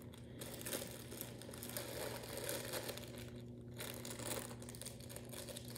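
Clear plastic packaging bags of a diamond painting kit crinkling and rustling as they are handled and opened, with a brief lull a little past halfway.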